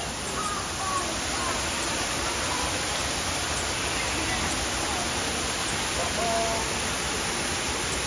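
Steady, even rush of falling water from a waterfall, with a few faint brief tones over it about a second in and again around six seconds in.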